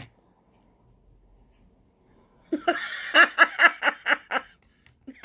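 A woman laughing: a quick run of short bursts, about five a second, starting about halfway in, with one more short burst near the end.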